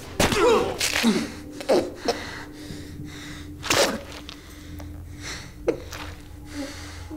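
Men straining in a chokehold struggle: a series of short, sharp gasps and grunts, several close together in the first two seconds and a few more spaced out later, over a low steady hum.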